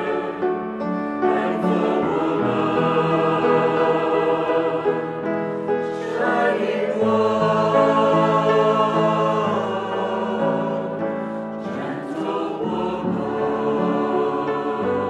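A choir singing a slow Marian hymn, the voices holding long notes together and moving to a new chord every second or two.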